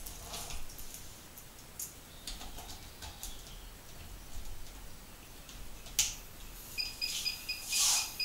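Small handling clicks as a cable connector is fitted to the back of a digital readout (DRO) display, then a sharp click about six seconds in. A rapid string of short, high electronic beeps follows as the display powers up and runs its start-up self-test.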